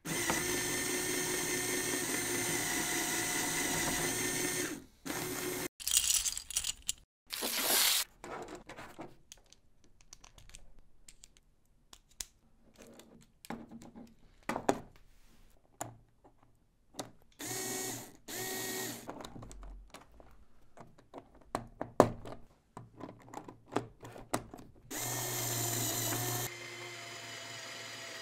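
LEGO Technic Power Functions motor driving plastic gears and universal joints, a steady whine with several tones. It stops after about five seconds. Scattered clicks and snaps of LEGO pieces being fitted together by hand follow, with two short motor runs partway through. The motor runs steadily again near the end.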